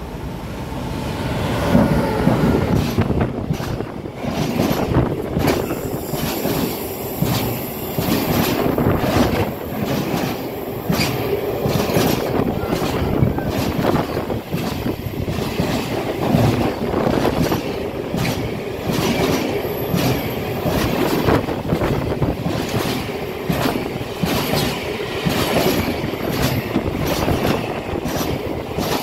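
Intermodal freight train of truck semi-trailers on low wagons, hauled by an electric locomotive, passing close by at speed. It swells over the first two seconds as the locomotive arrives, then runs on as a steady rumble of wheels with a rapid stream of clicking wheel beats over the rail joints.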